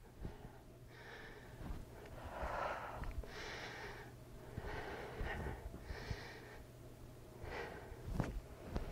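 A woman breathing hard through her mouth and nose, with repeated breaths in and out roughly once a second, as she catches her breath after a burst of cardio exercise.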